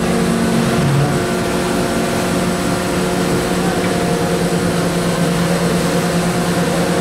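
Steady engine hum of a ship's tender running alongside in a swell, several held tones over a rush of wind and sea. One of its tones drops out about half a second in.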